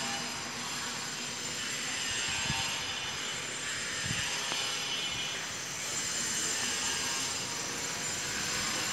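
Steady outdoor background noise, an even hiss and hum, with a couple of faint low thumps.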